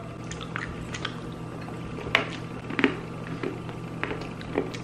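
Chewing and small wet mouth clicks while eating a chocolate egg candy, a few louder smacks scattered through, over a steady low hum.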